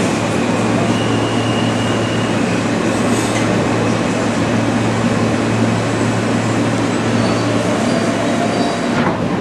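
Interior of an R160 New York City subway car running on the track and slowing into a station: a steady rumble of wheels and motors with a low hum, and a faint whine rising near the end.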